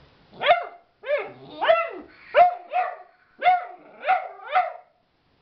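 Puggle puppy barking: about eight high-pitched barks, roughly two a second, each rising then dropping in pitch.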